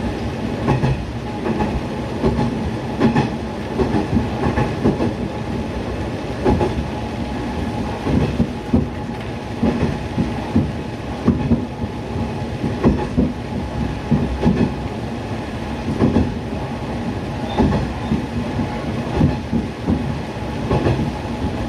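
Niigata Transys NDC-series diesel railcar running at speed: a steady engine and running drone, with repeated clacks of the wheels over rail joints.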